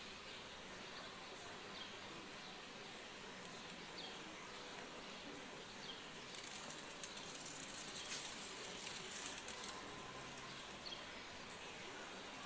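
Faint outdoor ambience: a steady hiss with a bird's short, high, falling chirp repeating every couple of seconds. A spell of crackling rustle rises in the middle.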